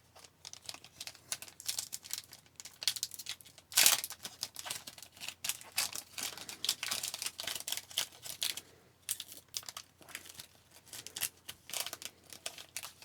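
A hockey-card pack wrapper being crinkled and torn open by hand, a run of short crackles with one loud rip about four seconds in; the pack is stubborn and slow to open.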